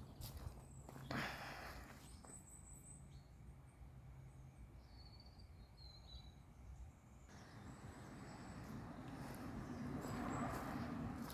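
Quiet outdoor ambience with a few short, high bird chirps about five to six seconds in, and a broad noise that swells up in the last few seconds.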